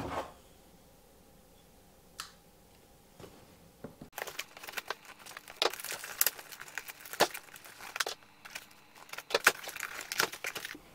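Cardboard product box being opened and its packaging handled: one sharp tick about two seconds in, then from about four seconds on a run of rustling, crinkling and sharp clicks.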